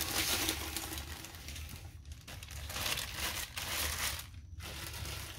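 Clear plastic sleeve crinkling as it is pulled off a paper-wrapped rolled canvas, in handling bursts with short pauses.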